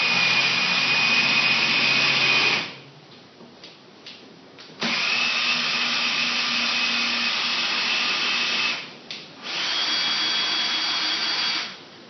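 Electric drill spinning a threaded rod through its bearings to wind a sawmill bed up or down its post, running in three steady bursts of about three, four and two seconds with short pauses between.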